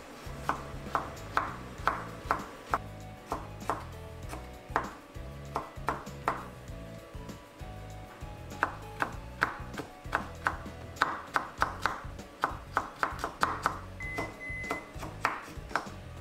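Kitchen knife chopping on a wooden cutting board, quick sharp strokes coming in uneven runs of two to four a second, over soft background music.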